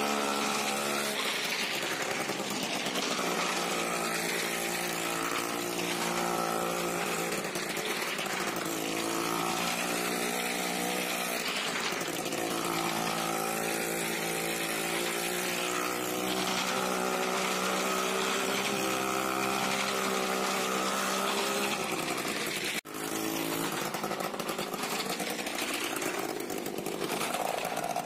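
Two-stroke bike engine ridden round a wooden wall of death, its pitch rising and falling again and again as the rider revs and changes up through the gears while circling. The sound drops out for an instant about 23 seconds in.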